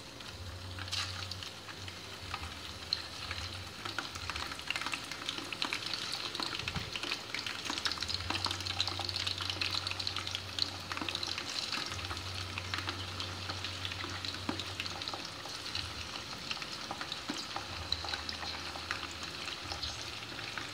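Strips of sun-dried chicken and pork jerky deep-frying in hot oil in an electric pot: a steady sizzle full of fine crackling.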